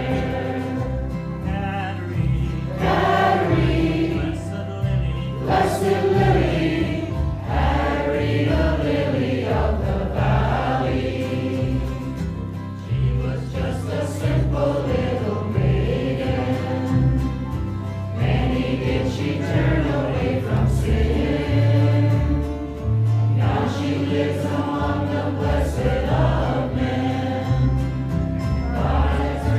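Church congregation singing a hymn together, many voices at once, over steady low notes that change in steps.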